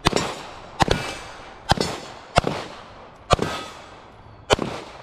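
Six gunshots at uneven spacing, roughly a second apart, each followed by a long echo that dies away before the next shot.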